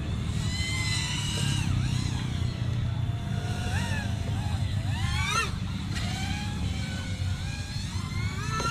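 FPV quadcopter's brushless motors whining, the pitch gliding up and down with the throttle, with a fast steep rise and fall about five seconds in, over a steady low rumble.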